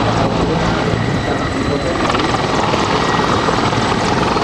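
Mil Mi-24 Hind attack helicopter flying low overhead: a loud, steady rotor beat over a continuous turbine whine.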